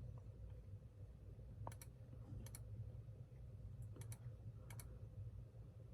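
A few faint, short clicks, mostly in quick pairs, over a low steady hum.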